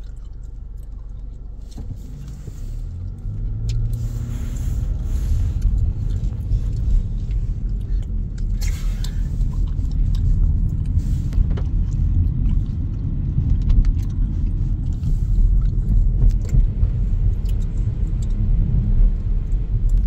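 Steady low road and engine rumble inside a moving car's cabin, growing louder about three seconds in and then holding as the car drives on.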